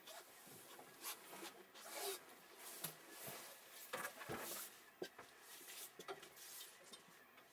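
Faint, irregular rustling and rubbing with a few light knocks.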